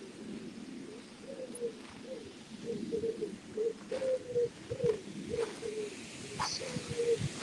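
Pigeon cooing: a run of short, low notes repeated over several seconds.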